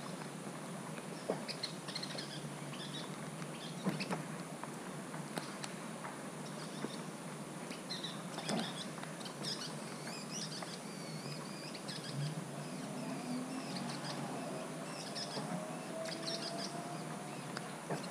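Birds chirping and calling on and off over a steady hiss of light rain, with a few sharp taps of raindrops on the camera housing.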